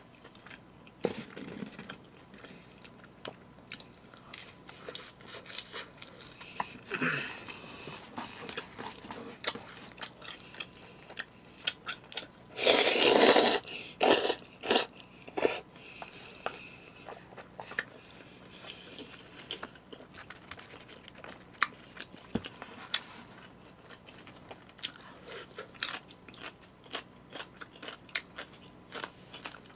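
A person chewing food with many small crunches and clicks. About thirteen seconds in comes a loud slurp of jajangmyeon noodles lasting a second or so, followed by a few more loud sucking sounds.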